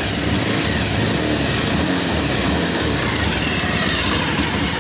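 Bajaj Pulsar 220F's single-cylinder engine running steadily, its carburetor freshly cleaned and refitted but not yet adjusted.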